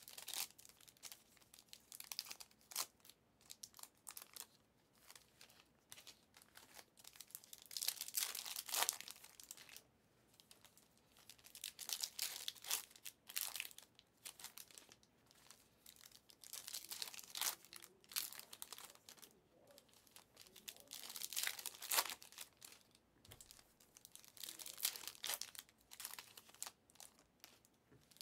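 Plastic foil wrappers of 2022-23 Select basketball card packs being torn open and crinkled by hand, in a run of irregular short and longer bursts.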